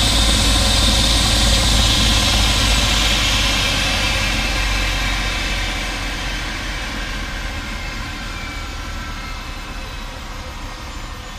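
Air ambulance helicopter's turbine engine and rotor running on the ground, its high whine fading and the sound dropping steadily in loudness from about three seconds in.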